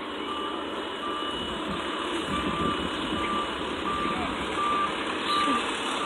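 Fire engine's backup alarm beeping at a steady pace, about three beeps every two seconds, over the running of its diesel engine: the truck is in reverse.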